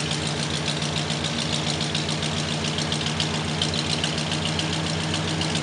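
1969 Cadillac Calais's 472 cubic-inch V8 idling steadily through its dual Magnaflow exhaust, moments after a cold start.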